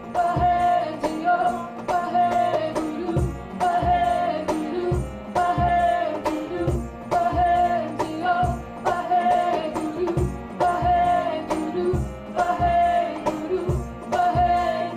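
A woman singing a devotional song live, backed by guitar and a steady drum beat of about two strokes a second.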